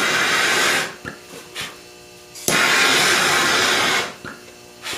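Handheld propane torch flame playing over machinable wax: a hiss that twice swells into a loud rushing noise, starting and stopping abruptly, first for under a second and then, midway, for about a second and a half.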